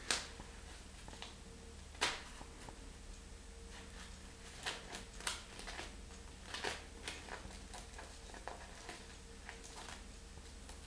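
Paper cards and envelopes rustling and crinkling as a cat paws at them on a desk: scattered short, sharp rustles, the loudest near the start and about two seconds in, and a run of them in the middle. A faint steady hum sits underneath.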